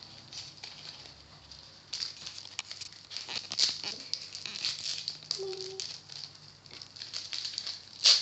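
A trading-card packet's wrapper being torn open and handled: a run of irregular crinkles and small crackles, which gets busier about two seconds in.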